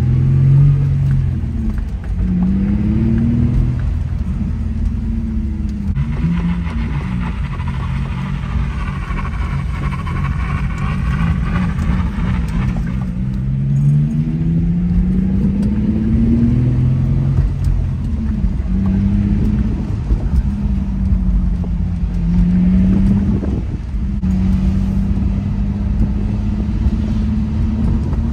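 Infiniti G35 sedan's 3.5-litre V6 exhaust with the muffler deleted for blast pipes (resonator and cats kept), heard from inside the cabin while driving. The engine note rises in pitch as the car accelerates and drops back several times over a steady rumble, with a rougher rasp during the longest pull.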